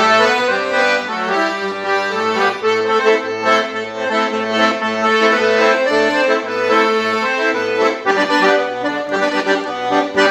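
Instrumental music: sustained chords over a steadily pulsing bass note.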